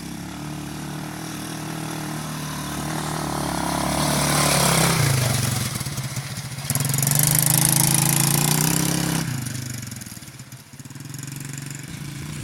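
A 125cc ATV engine running, getting louder twice as the throttle is opened, with the engine note dipping and rising, then dropping back to a lower, quieter note about nine seconds in.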